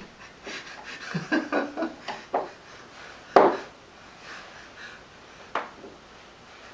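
Handling noises: a sharp knock about three and a half seconds in and a lighter click about two seconds later, with faint rustling and brief murmurs of voice before them.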